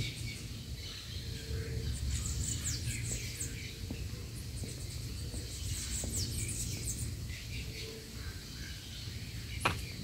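Small birds chirping in vegetation: many short, high, falling chirps from several birds over a low, steady background rumble. One sharper falling call comes near the end.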